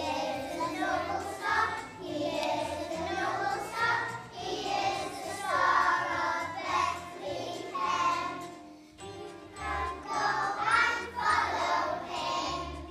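A group of young children singing a festive song together over a musical accompaniment.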